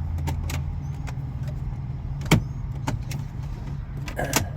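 Clicks and light rattles of a key being worked in a 2009 Audi A5's ignition, where it is stuck, with one sharp click a little over two seconds in and a short burst of rattling near the end, over a steady low hum.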